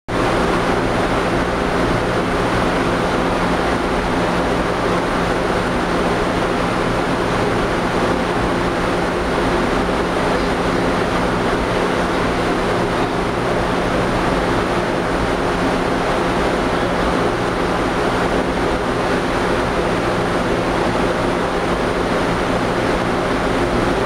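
Jetmelter stack melter aluminum melting furnace running: a loud, steady rushing noise with a low hum underneath, unchanging throughout.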